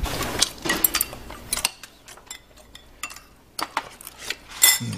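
Spoons clinking and tapping against bowls at a meal table: scattered short, sharp clinks, the loudest near the end, over a low hum that cuts off about a second and a half in.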